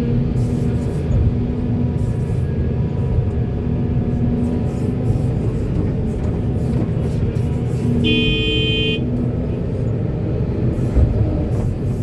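Heavy diesel machinery, an excavator and dump truck, running steadily, with a vehicle horn sounding once for about a second, about two-thirds of the way through.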